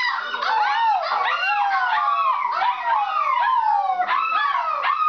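A litter of Alaskan Malamute puppies howling and yipping together, many high voices overlapping in calls that rise and fall without a pause.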